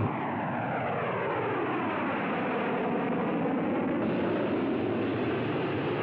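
Jet bomber's engines passing, a loud steady rush with a hollow sweeping tone that falls and then rises again.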